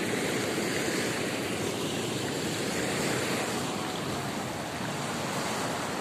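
Ocean surf and shallow seawater washing over a rocky reef flat: a steady rushing wash of water.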